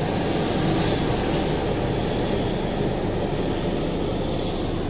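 A motor vehicle's engine running steadily, heard as an even low noise without distinct strokes or changes.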